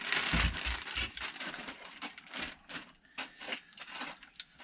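Packaging and papers rustling and crinkling as parts are handled out of a box, with light knocks. Loudest in the first second, then scattered smaller rustles and clicks.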